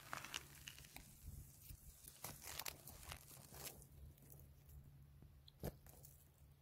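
Near silence with faint crackling rustles of dry grass close to the microphone, a few in the middle and one sharp click near the end, over a low steady hum.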